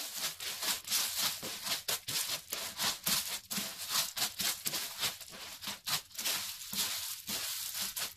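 Wooden spoon stirring cornflakes coated in melted chocolate in a frying pan: a steady run of crunchy, rattling scrapes, several a second.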